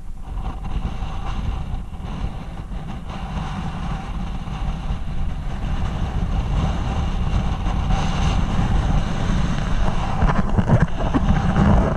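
Wind buffeting the microphone, a continuous low rumble that grows louder toward the end.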